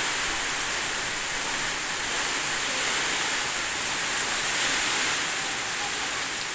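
Heavy tropical rainstorm with strong wind: a steady, dense hiss of pouring rain, swelling slightly about four to five seconds in.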